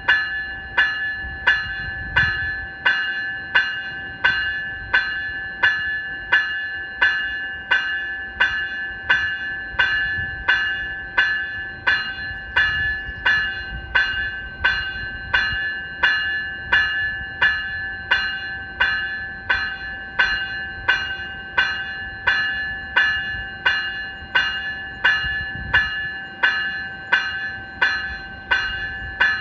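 Graham-White E-Bell, the electronic bell on an NCTD Coaster cab car, ringing steadily in a high pitch at about three dings every two seconds, each ding dying away before the next. A low rumble runs underneath.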